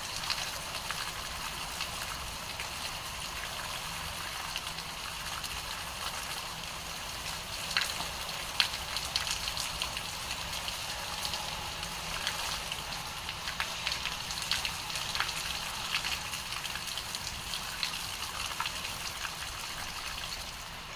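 Steady rainfall: an even hiss of rain with many individual drops ticking and pattering on a surface, a few louder drop hits about eight seconds in. The sound cuts off suddenly at the end.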